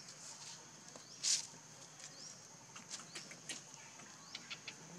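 Dry fallen leaves crackling and rustling as macaques move over them, with one sharp louder rustle about a second in and a few quick crackles near the end. Under it a steady high-pitched drone with short rising chirps now and then.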